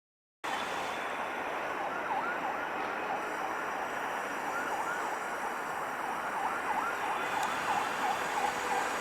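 Steady outdoor ambient noise that cuts in about half a second in, with a rapid run of short, dipping chirps repeating a few times a second.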